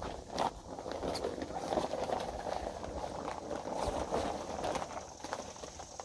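Stiff, waxy polyurethane-coated rain jacket with a nylon lining rustling and crinkling as it is swung on over the shoulders and the arms are pushed through the sleeves.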